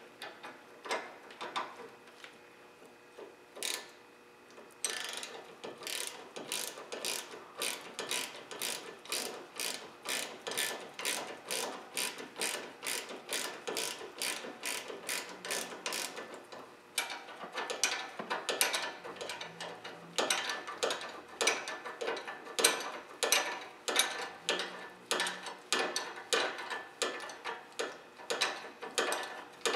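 Ratcheting wrench clicking in an even run, about two to three clicks a second with a brief pause partway through, as it tightens a stabilizer link nut while the link's stud is held still.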